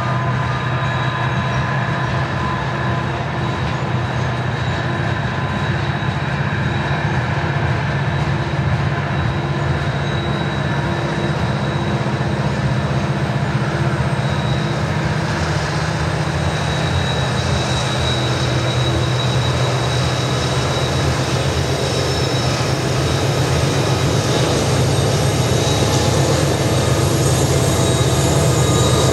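Diesel locomotives hauling a loaded coal train upgrade, working hard: a steady low engine drone over the rolling of the coal cars, with a faint thin wheel squeal on the curve. It grows slightly louder near the end.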